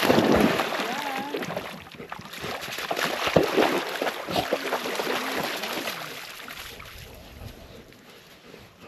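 Dogs splashing as they run and wade through shallow lake water. The splashing is loudest in the first second and again around three to five seconds in, then dies away near the end.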